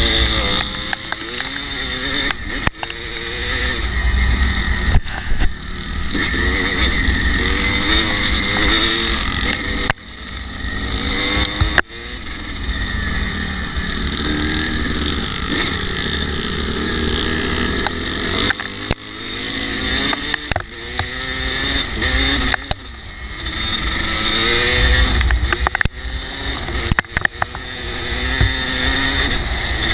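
Kawasaki KX250 dirt bike engine under the rider, revving up and easing off over and over as it climbs a hill track. The pitch rises and falls with the throttle, with brief drops in loudness every few seconds.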